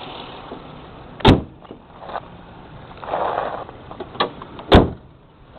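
Two heavy slams about three and a half seconds apart, typical of a car's hood and door being shut, with smaller knocks and rustling between them. The engine idles faintly underneath.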